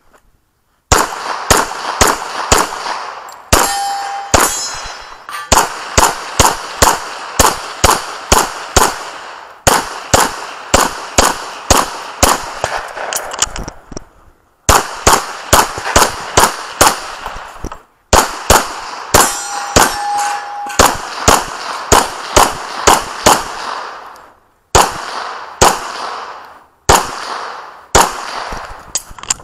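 Pistol shots fired in quick strings, two to three a second, broken by short pauses. A steel target rings out twice when hit.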